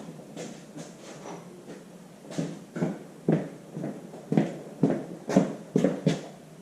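Footsteps, about two steps a second, growing louder from about two seconds in.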